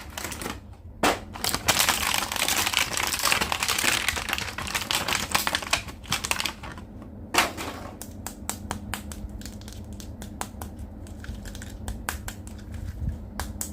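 Plastic toy packaging being handled and opened: a dense run of crackling and rapid clicking for the first several seconds, thinning to scattered clicks after that.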